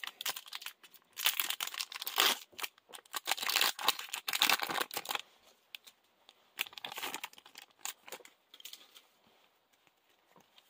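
Foil wrapper of a Yu-Gi-Oh Lightning Overdrive booster pack being torn open and crinkled by hand: a run of crackling rustles over the first five seconds, then a few softer rustles about seven seconds in, fading away near the end.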